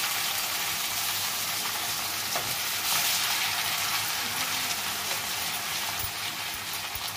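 Sliced potatoes sizzling steadily in oil in a steel kadhai over a high gas flame, being stirred and turned over with a spatula.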